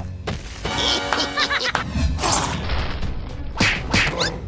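Cartoon fight soundtrack: background music with several crashing hit sound effects.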